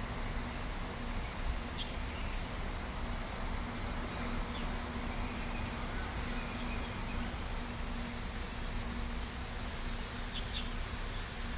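Steady outdoor background noise: a low rumble with a faint steady hum, and a thin high-pitched whine that comes and goes over most of the stretch.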